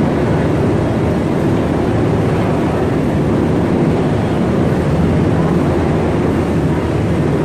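U.S. Coast Guard rescue helicopter hovering overhead, its rotor and engine noise a loud, steady drone.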